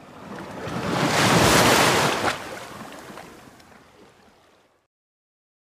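Surf from a wave washing onto a beach: a rush of noise that swells to a peak about a second and a half in, then fades away over the next few seconds.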